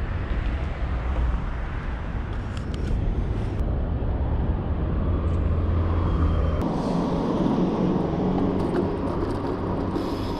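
Outdoor city ambience: road traffic noise with wind rumbling on the microphone. The background changes abruptly about two-thirds of the way through.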